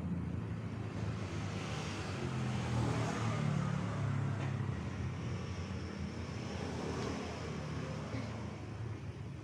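A salvaged refrigerator compressor running with a steady low hum as it pumps air into a balloon.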